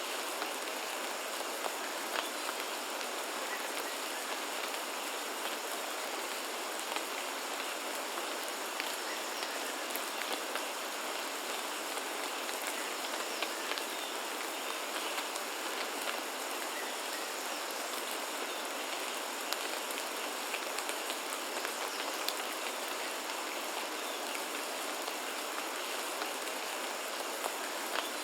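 Steady rain pattering, with many scattered sharp drop hits. A faint, steady high tone sits in the background.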